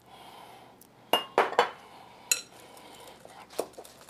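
Wire whisk and glassware clinking against a glass mixing bowl as herbs are stirred into a dressing: several sharp, irregular clinks with a brief ring.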